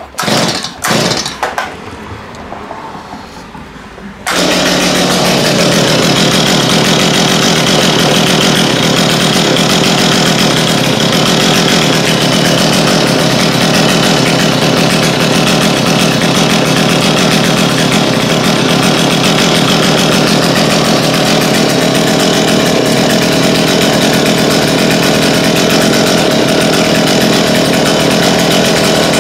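Stihl MS210 two-stroke chainsaw being pull-started on a newly fitted aftermarket carburetor: a couple of quick yanks of the starter cord, then about four seconds in the engine catches and keeps running steadily. It is the saw's first start in about five years.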